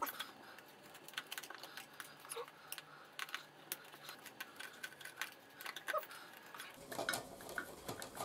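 Faint, irregular small clicks and light metallic clinks of a small Phillips screwdriver working tiny screws out of a barber chair's hydraulic pump housing.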